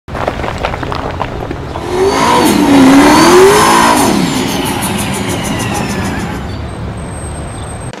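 Race car engine sound effect: the engine revs, its pitch sweeping down and back up, loudest about three seconds in. The pitch then drops sharply as it passes, and the sound fades away over the last few seconds.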